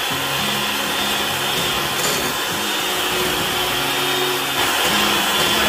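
Electric hand mixer running steadily, its beaters creaming butter and sugar in a bowl.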